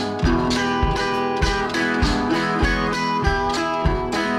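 Background music with strummed acoustic guitar and a steady beat.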